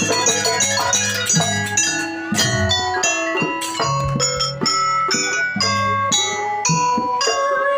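Jaranan accompaniment music, gamelan-style: struck metal keyed instruments ring out in quick rhythmic notes over repeated low drum hits.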